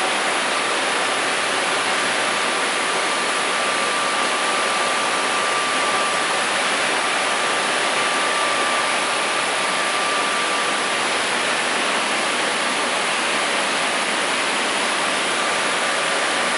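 Steady hiss of running machinery with a thin high whine that fades out for a few seconds in the latter half and comes back near the end.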